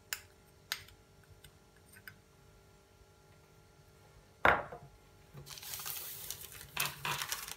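A metal spoon clicks lightly against a small glass bowl twice. About four and a half seconds in, the glass bowl is set down on the countertop with one sharp knock, the loudest sound. From about five and a half seconds in, baking paper rustles and crinkles as it is handled.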